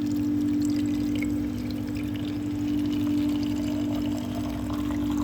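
Drinking fountain running, water pouring into a water bottle over a steady low hum from the fountain.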